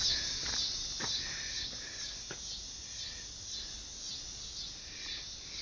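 Insects chirping steadily in the background, with a few faint clicks of handling.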